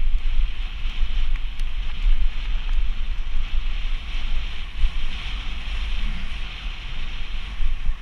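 Wind buffeting the camera microphone as a mountain bike rolls along a dirt trail, over a steady hiss of the tyres on the dry dirt, with a few faint ticks.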